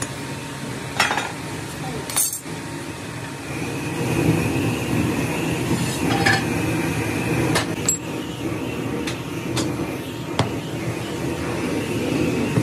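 Metal hand tools and a metal moulding flask clinking and knocking as damp moulding sand is packed and struck off for a sand-casting mould: about a dozen short, sharp knocks at irregular intervals over a steady low background din.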